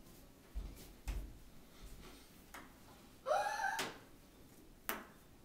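Light thumps from a small child climbing onto a wooden dining table, then a brief high wordless squeal from the child about three seconds in, and one sharp click near the end.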